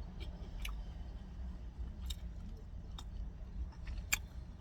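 A person chewing food with a few sharp, wet clicks and smacks of the mouth, the loudest about four seconds in, over a steady low hum.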